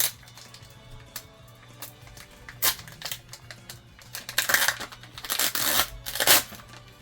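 Background music under small clicks and several short crinkling rustles of packaging being handled as a trading card is unpacked.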